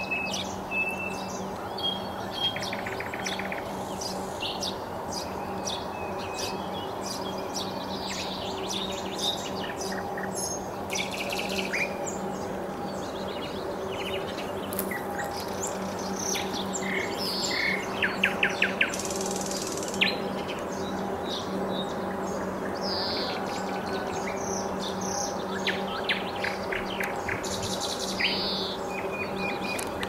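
Nightingale singing: a string of whistled notes and rapid clicking trills, varied from phrase to phrase. A steady low hum runs underneath.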